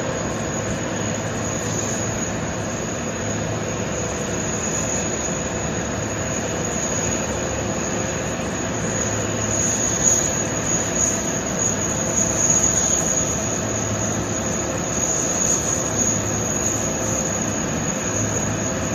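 Steady jet-like whine over a continuous rumble and hiss from an airliner being de-iced by a spray truck. The high whine grows louder about halfway through, with a few uneven swells.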